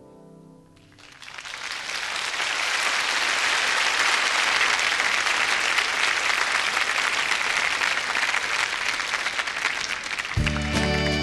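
Concert hall audience applauding after a song, the clapping swelling up about a second in and holding steady. Near the end the band starts the next piece of music.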